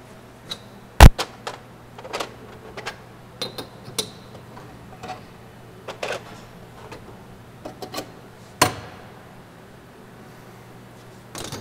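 Steel tool holders and cutters handled on a wooden workbench: scattered clinks and knocks, the loudest a sharp knock about a second in and another well past the middle, over a faint steady hum.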